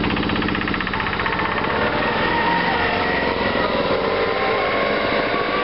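An engine running steadily with a fast, even pulse, cutting off abruptly at the end.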